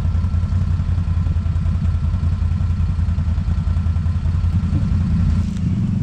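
ATV engine running steadily at low revs, idling or creeping along; background music comes back in near the end.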